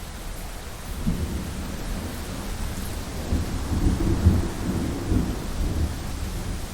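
Thunderstorm: steady rain hiss with a roll of thunder that starts about a second in, swells to its loudest around the middle and rumbles off near the end.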